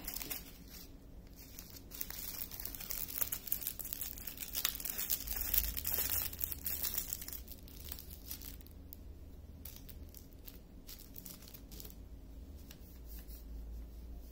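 Small clear plastic bags of diamond-painting drills crinkling and rustling as they are handled and sorted, with many light clicks. Busiest in the first half, fainter after about eight seconds.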